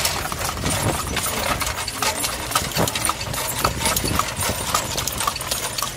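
Horse's hooves clip-clopping on a paved road, heard from the cart the horse is pulling, over steady rolling noise from the cart.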